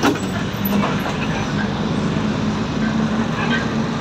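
City bus under way, heard from inside the passenger cabin: a steady engine and drivetrain rumble with a hum whose pitch climbs slightly as it picks up speed. There is one sharp knock right at the start.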